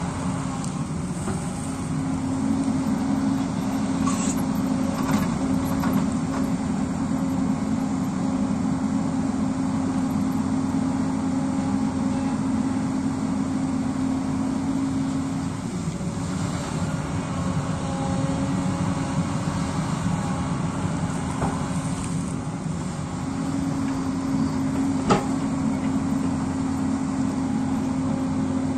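Hyundai crawler excavator's diesel engine running steadily under hydraulic load while it digs rocky soil from a hillside, its pitch easing briefly twice. A few sharp knocks of bucket on rock and soil, the loudest one near the end.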